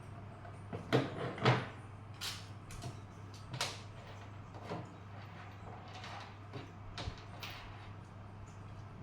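Irregular clicks, knocks and scrapes of plastic parts being handled while an extension socket is taken apart and repaired, the two loudest knocks about a second in.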